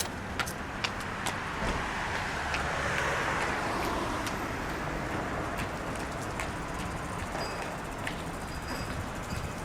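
Steady street traffic noise, swelling as a vehicle passes about two to four seconds in. A run of sharp, regular clicks sounds in the first second, about two or three a second.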